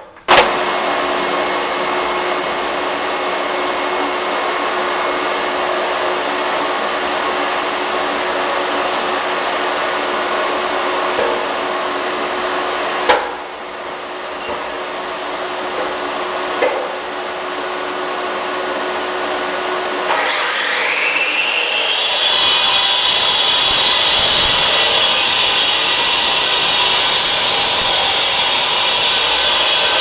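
Evolution electric concrete saw starting up and cutting dry through an old concrete slab, a steady loud grinding whine of the abrasive blade in concrete. About twenty seconds in a whine rises in pitch and the cutting grows louder.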